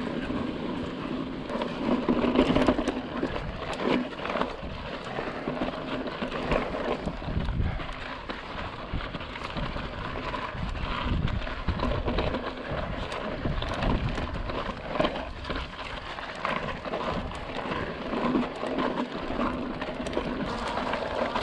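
A Fezzari La Sal Peak hardtail mountain bike rolling over sandstone slickrock, heard from the handlebar camera: tyre noise and frequent small knocks and rattles from the bike over bumps, with wind rumbling on the microphone.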